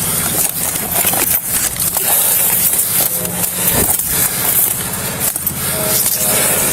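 A vehicle engine running steadily, with crackling and scraping noise over it throughout.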